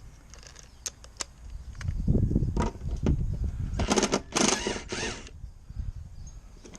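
Socket tool working an 8 mm bolt off a Craftsman self-propelled lawn mower: scattered clicks, then a run of rapid clicking and metal rattling about four seconds in as the bolt comes loose.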